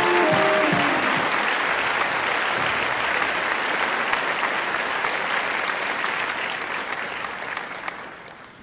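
The last brass notes of a band's tune ring out in the first second, then an audience applauds steadily. The applause fades out near the end.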